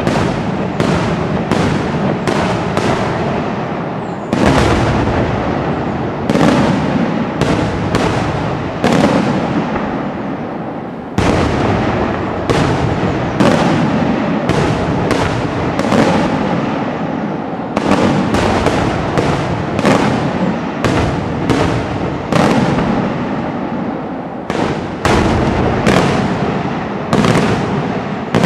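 Daytime aerial fireworks: a steady barrage of sharp bangs, about one to three a second, each trailing off in an echo.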